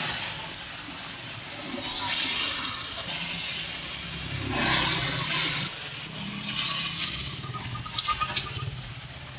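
Rain falling, a steady hiss that swells and eases several times, over a low steady hum, with a few sharp clicks near the end.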